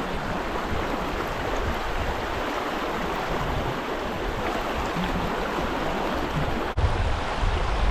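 Stream water rushing steadily in a riffle. Near the end the sound cuts out for an instant, then comes back with more low rumble.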